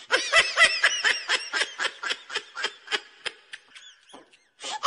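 Laughter: a fast run of short ha-ha pulses that thins out after about three seconds, pauses briefly, then starts again near the end.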